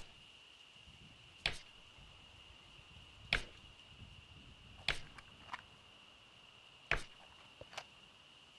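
Homemade foley axe chops: five sharp, separate knocks on wood about one and a half to two seconds apart, some followed by a fainter tick. Under them runs a steady thin high tone.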